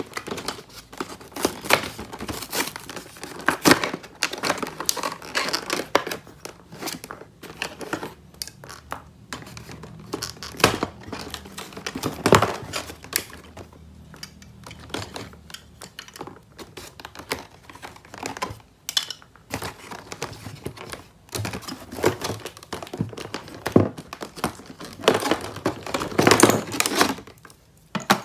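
Toy packaging being unwrapped: irregular crinkling and crackling with sharp clicks and taps.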